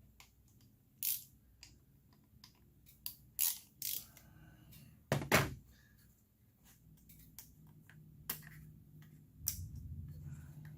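Hand tools and engine parts being handled: scattered sharp clicks and knocks, the loudest about five seconds in, with a low hum coming in near the end.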